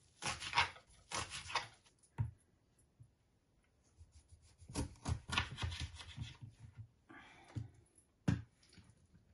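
Kitchen knife chopping fresh mint and coriander on a cutting board, a run of quick strokes in the first two seconds. After a pause, another cluster of knife strokes as a lime is cut in half, and one sharp knock near the end.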